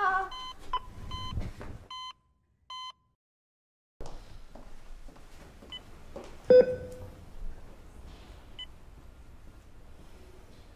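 Bedside patient monitor beeping: a quick run of short beeps that stops about three seconds in, then after a second of dead silence a single beep every few seconds over faint room noise. About six and a half seconds in, a sharp clink with a short ringing tone, the loudest sound.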